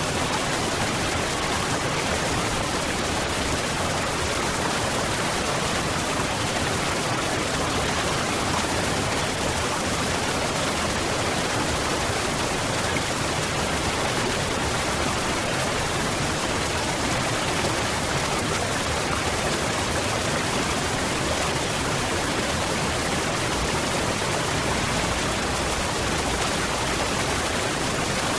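Waterfall: falling water making a steady, unchanging rush.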